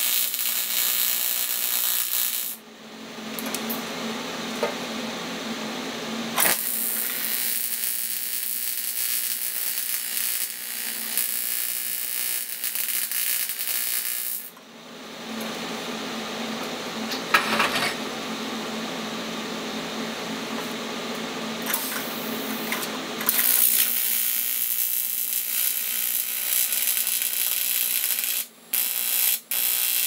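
AC TIG welding arc on 1/8 in aluminium from an AHP AlphaTIG 200X, buzzing and hissing steadily. The arc runs in three stretches, broken twice, about two and a half seconds in and again about halfway through. A quieter steady sound fills the breaks.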